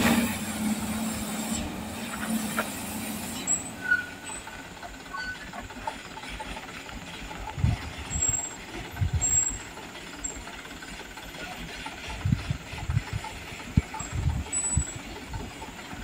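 Light cab-over cargo truck crawling slowly over a rough dirt road, its engine running low, with scattered short low thumps through the second half.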